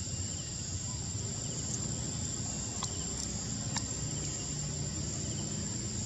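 Steady, high-pitched drone of insects in the trees, with a low background rumble and a couple of faint clicks about halfway through.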